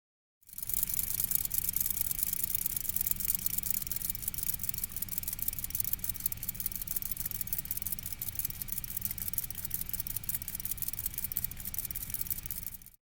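Homopolar motor running: its copper wire spinning on the AA battery and magnet, giving a steady crackling hiss over a low rumble. It starts suddenly about half a second in and cuts off near the end.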